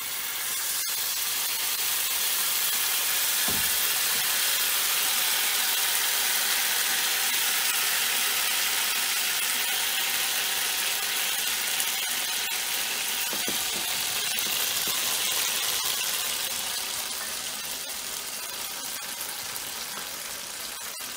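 Thin oil, water and cornflour batter sizzling steadily in a hot non-stick frying pan as it fries into a lacy crisp (crocante), easing off over the last few seconds.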